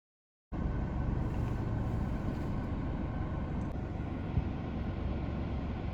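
A car's engine running steadily with road noise, cutting in suddenly after digital silence about half a second in. A single sharp tick comes a little past four seconds in.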